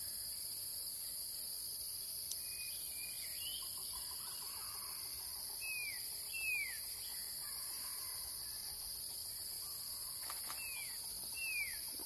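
A steady high-pitched insect drone, with a bird calling over it in short downward-slurred whistled notes, given in pairs about halfway through and again near the end.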